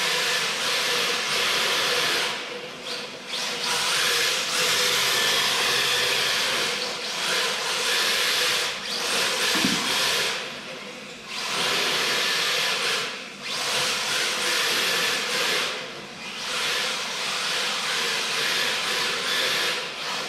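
Electric radio-controlled drift car on an MST chassis, its motor whining and its hard drift tyres hissing as it slides across a tiled floor. The sound drops out briefly several times between bursts of driving.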